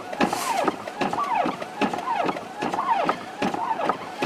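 An electronic siren wailing in a fast repeating pattern: a falling tone about two or three times a second.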